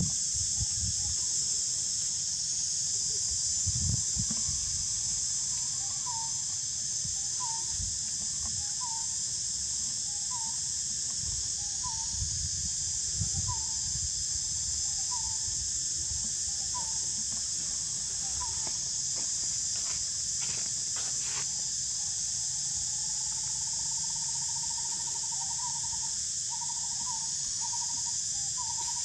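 Steady high-pitched insect drone, with a bird repeating a short falling hoot about every second and a half for several calls, then a quicker run of notes near the end.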